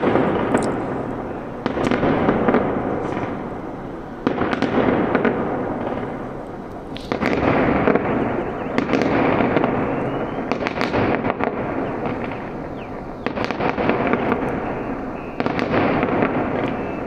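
Fireworks going off in a run of sudden loud bursts a few seconds apart, each trailing off into dense crackling.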